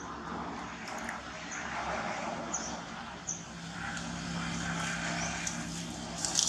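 A motor vehicle passing, its engine noise swelling over a few seconds with a steady low hum in the second half. A brief burst of leaf rustling and snapping clicks comes near the end.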